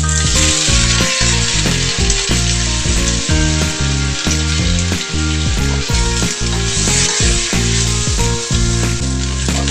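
Food sizzling as it is sautéed in a hot pan, with a dense frying hiss that swells at the start, under background music with a steady beat.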